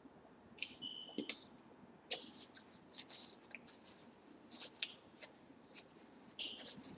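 Paper napkin crinkling and rustling in the hands: an irregular string of short, crisp crackles.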